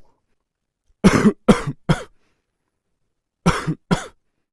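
A person coughing with a dry, non-productive cough, with no phlegm and no rattle in the chest: a quick burst of three coughs about a second in, then two more near the end.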